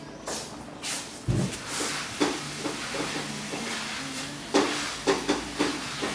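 Bristle brush stroked through a Dalmatian's short coat: a run of short brushing strokes, coming close together in the second half. A single dull knock about a second in.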